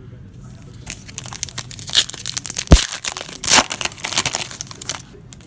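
Plastic wrapper of a trading card pack crinkling and tearing as it is ripped open, a run of sharp crackles that is loudest in the middle.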